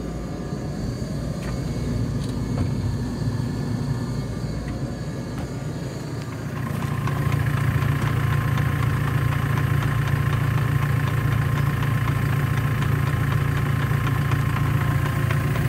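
JCB 531-70 Agri Super telehandler's diesel engine idling steadily, heard first from inside the cab, then louder and fuller from beside the machine about six seconds in.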